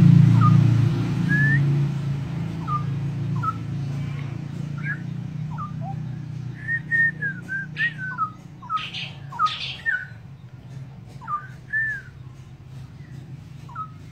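A caged straw-headed bulbul gives scattered short whistled notes that rise and fall, bunching into a halting phrase in the middle with a few harsher notes. This is a young bird's practice song, not yet full song. A steady low hum is loudest at the start and fades away.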